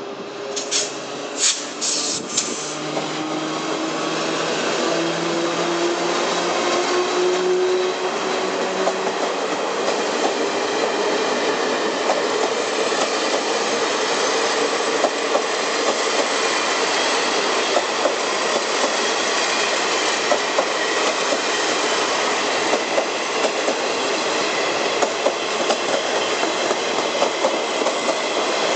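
E300-class electric locomotive pulling a train of baggage cars out of a station. A few short sharp sounds come near the start, then a slowly rising motor whine as the train gathers speed. After that comes the steady rumble and clickety-clack of the cars' wheels rolling over the rail joints, growing louder as the train passes.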